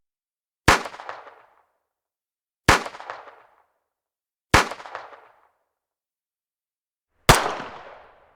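Four single pistol gunshots, fired one at a time about two seconds apart, the last after a slightly longer gap. Each is a sharp crack followed by a short echoing tail, the last shot the loudest with the longest tail.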